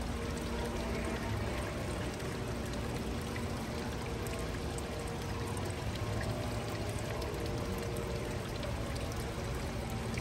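Steady rush of running water, pouring without a break.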